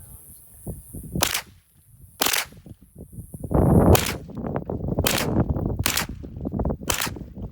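Six gunshots fired one at a time, roughly a second apart and a little uneven. Just before the third shot there is a dull low rumble of noise, the loudest non-shot sound.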